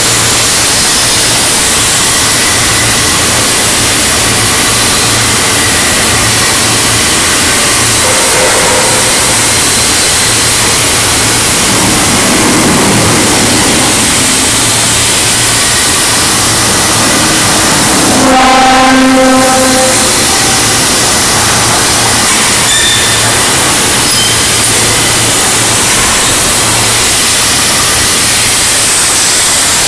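Loud steady industrial noise of a steel fabrication shop with a low machine hum. About two-thirds of the way through, a horn-like pitched tone sounds once for about a second and a half.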